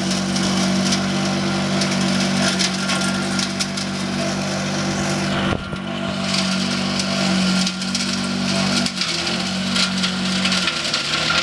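A homemade forage chopper-grinder machine running steadily while chopping leafy green branches: a constant motor hum with a crackle of stalks and leaves being cut. The hum breaks briefly about five and a half seconds in and sags in pitch around nine seconds as the machine takes a load.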